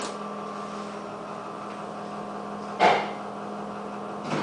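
KONE Monospace traction lift car humming steadily after its button is pressed, with one sharp clunk about three seconds in.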